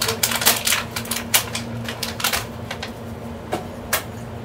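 Kitchen clatter: a quick run of small clicks and knocks from stainless-steel bowls, containers and utensils being handled. It thins out after about two seconds, with two sharper knocks near the end, over a steady low hum.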